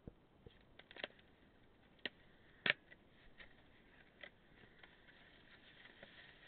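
Cardboard boxes and packing material being handled during unpacking: a scatter of sharp taps and clicks with light rustling, the loudest tap about two and a half seconds in.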